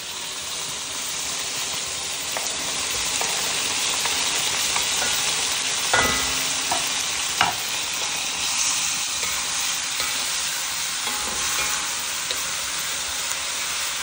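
Freshly added pineapple sizzling steadily in hot oil in a frying pan as it is stirred, with two sharper knocks about six and seven and a half seconds in.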